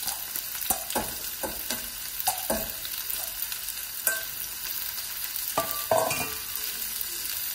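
Onion and olive oil sizzling in a frying pan as sliced leeks are tipped in and stirred, with a steady hiss and a series of knocks and scrapes of the bowl and a wooden spatula against the pan. The loudest knock comes about six seconds in.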